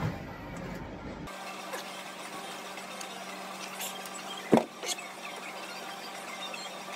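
A single sharp knock about halfway through, with a smaller one just after it, over a steady low hum: hand tools working at a stuck transmission pan to break it loose.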